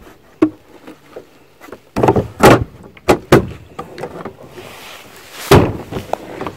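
A series of hard knocks and thumps, the loudest about two and a half and five and a half seconds in.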